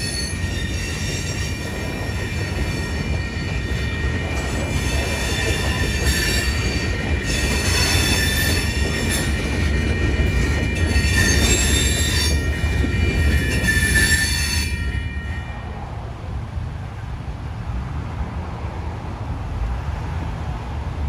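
Train wheels squealing against the rails as the cars roll past: several high, steady squeals that swell and fade in waves, stopping about fifteen seconds in, over a constant low rumble.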